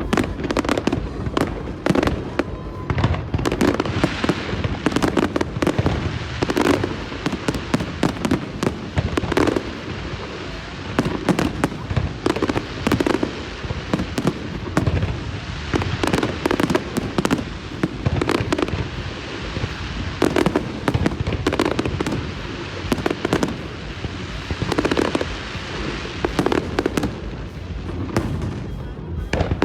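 A fireworks display: a dense, continuous run of bangs, many coming in quick succession.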